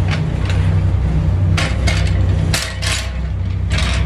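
A tugboat's engines running with a steady low drone, with several short noises over it in the second half.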